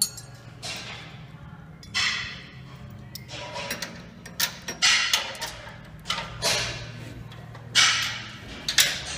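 Short runs of ratchet-spanner clicking and metal clinks, about seven spread through, as bolts on the sawmill's steel endframe are worked by hand, over a steady low hum.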